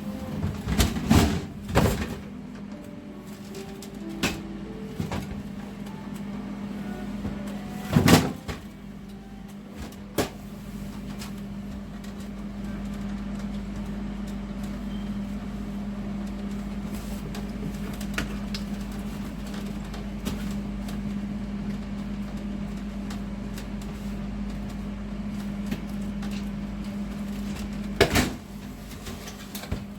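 Sharp knocks and clicks of hands and tools handling an appliance, over a steady low hum. A low rumble comes in about ten seconds in and stops with a knock near the end.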